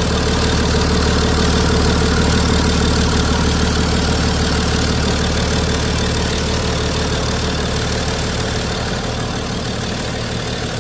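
BMW 535d xDrive's straight-six diesel idling steadily on its first run after the failed high-pressure fuel pump, injectors, low-pressure pump and rail pressure sensor and regulator were replaced. It swells slightly in the first couple of seconds, then settles.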